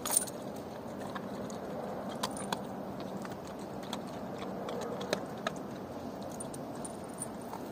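A dog crunching and chewing bones, with a handful of sharp cracks and clicks, the loudest near the start, and the metal chain on its collar clinking.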